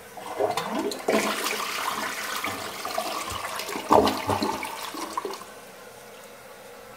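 A 1.6-gallon-per-flush gravity toilet (2001 Peerless Pottery tank on an elongated bowl) flushing: water rushes into the bowl and swirls down the drain. It is loudest about four seconds in and stops abruptly after about five seconds.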